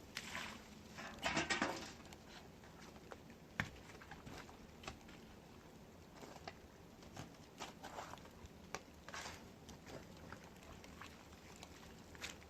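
Scattered light knocks and scrapes, with a short clatter of several knocks about a second and a half in.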